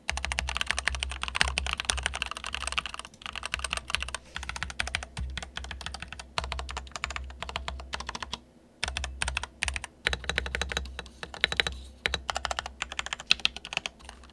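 Tape-modded GamaKay LK67 65% mechanical keyboard with yellow Gateron linear switches being typed on quickly: a dense, irregular run of keystroke clacks, broken by a short pause a little past halfway.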